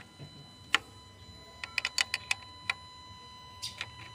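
A dozen or so light, sharp metallic clicks and clinks of an open-end wrench on the injector fuel-line nuts of a Hyundai Accent CRDi diesel, clustered about two seconds in and near the end, with the engine not running. The nuts are being loosened to bleed air from the fuel system after a fuel filter change.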